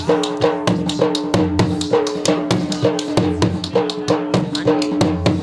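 Punjabi dhol drum beating a fast, even dance rhythm for jhumar, over a steady held tone.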